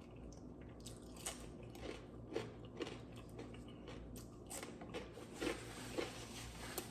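Close-miked chewing of fried food, with a string of soft, irregular crunches and wet clicks.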